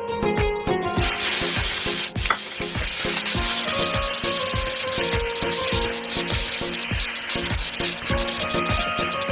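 Food sizzling in hot oil in a pan, the sizzle starting about a second in, over background music with a steady beat.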